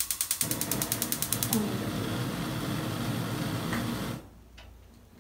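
Gas cooktop burner being lit: the electric igniter clicks rapidly, about ten a second, until the flame catches. The burning gas then runs as a steady rush that stops suddenly a little after four seconds in.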